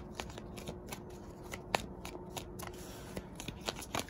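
Tarot deck being shuffled by hand: a run of quick, irregular light card clicks.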